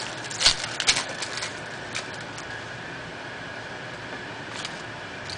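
Crackling and rustling of a trading-card pack wrapper and cards being handled: a cluster of sharp crackles in the first second and a half, then only a steady background hum.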